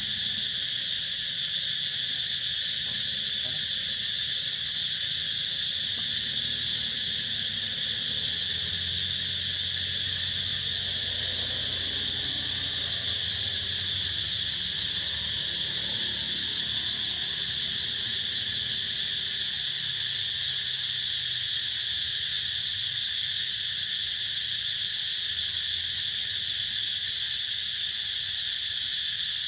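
Steady, unbroken high-pitched chorus of many insects.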